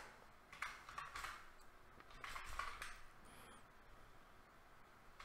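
Faint typing on a computer keyboard: a few scattered keystrokes, then a short run of them about two to three seconds in.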